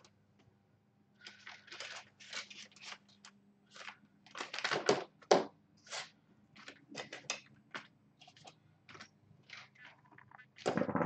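Clear plastic parts bags crinkling and rustling in many short, irregular crackles as they are handled.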